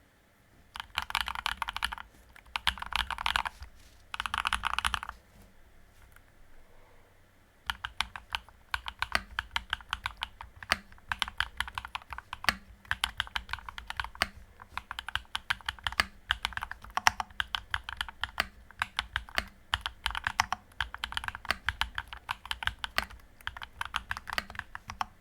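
Typing on a tape-modded, sound-dampened custom 68-key mechanical keyboard with MMD Princess switches. It opens with three short bursts of rapid keystrokes, then after a pause of a couple of seconds settles into steady, fast typing.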